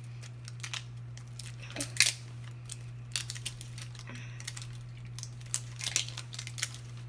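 Plastic wrapping on LOL Surprise balls being peeled and crinkled by hand: a run of irregular crinkles and clicks, the loudest about two seconds in. A steady low hum runs underneath.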